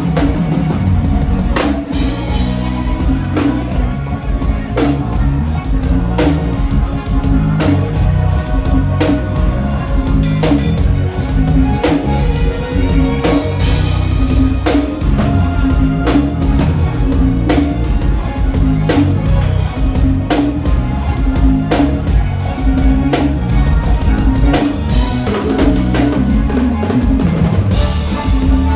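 A forró band playing live on a stage sound system during a soundcheck: a drum kit with bass drum and snare keeping a steady beat under sustained keyboard parts.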